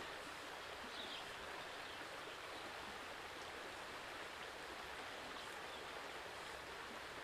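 Shallow stream running over rocks, a steady unbroken rush of water.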